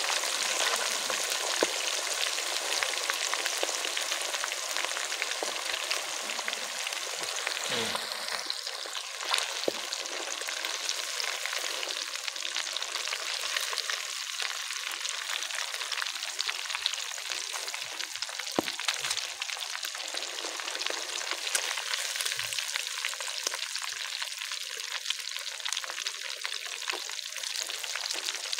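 Fish pieces deep-frying in hot oil in a clay pot: a steady sizzle, with occasional sharp clicks and scrapes from the spatula as the pieces are stirred and lifted.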